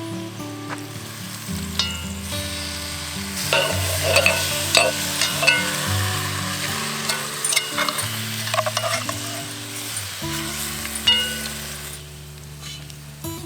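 Beef browning in hot oil in a cast iron Dutch oven, sizzling, with the clicks and scrapes of a utensil stirring it, busiest in the middle; background music plays underneath.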